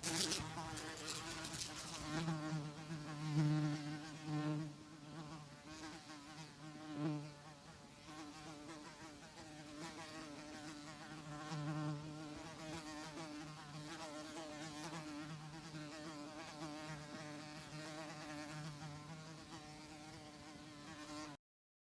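Housefly buzzing in flight, its wingbeat pitch wavering as it swells closer and fades away, loudest in the first few seconds. It cuts off suddenly near the end.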